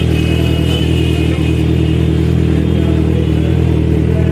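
Kawasaki Ninja 1000's inline-four engine idling steadily through newly fitted aftermarket slip-on exhausts, one on each side of the bike.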